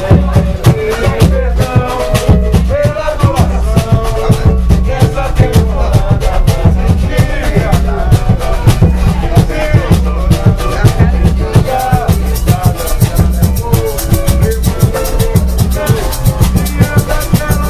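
Live samba band playing: a pandeiro and other hand percussion keep a fast, busy beat with singing over it. The jingling percussion grows brighter about twelve seconds in.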